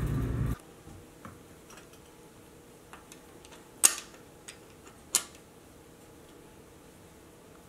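Scattered sharp plastic clicks and taps from a small LEGO brick holding a neodymium magnet as it is handled and set down on a tabletop, with two louder clicks about four and five seconds in.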